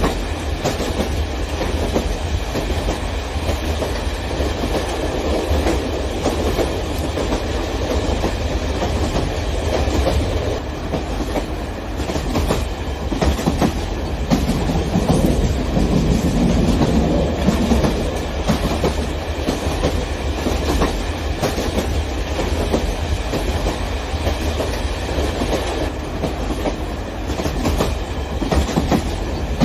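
Electric model trains running on model track: a steady rattling clatter of wheels over the rails, a little louder about halfway through.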